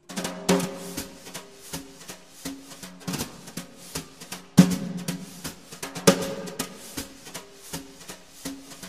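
Background music with a steady drum-kit beat, snare and bass drum over sustained bass and chord notes.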